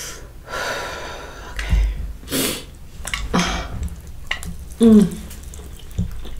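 Close mouth sounds of a person slurping and chewing saucy noodles: several wet slurps and lip smacks, with a short voiced sound falling in pitch, the loudest moment, about five seconds in.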